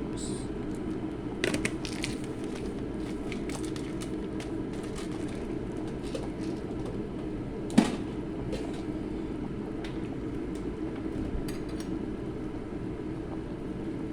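A pot of chicken boiling with a steady low rumble, with scattered light clicks and one sharp knock against the pot about eight seconds in.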